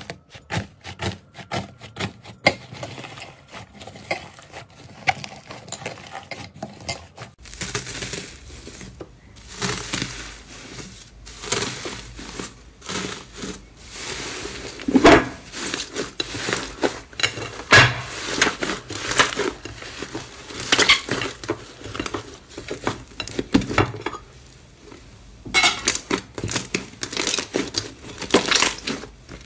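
Hands squishing and pressing slime, making a dense run of small crackling and popping clicks. About seven seconds in the sound changes to louder, irregular squelches and crackles as the hands knead a pink fluffy slime covered in gold leaf.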